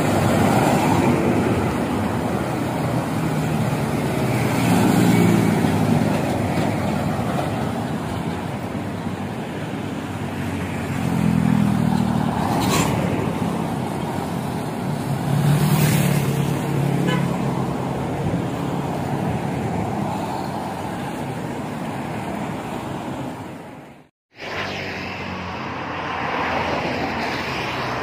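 Buses and trucks passing on a road over steady traffic noise, with a horn sounding three times in longer pitched blasts. The sound cuts out abruptly for a moment near the end.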